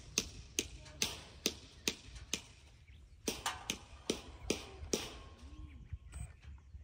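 Sharp taps repeating evenly, about two a second, stopping about five seconds in, over a low steady rumble.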